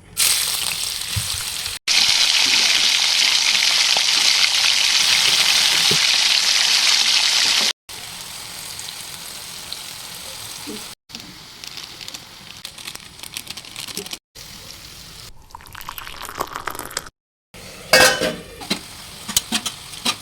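Food frying in hot oil in a pan, heard over several short edited clips. The sizzle is loudest in a clip from about two to eight seconds in, quieter in the later clips, with some sharp clatter near the end as the food is stirred.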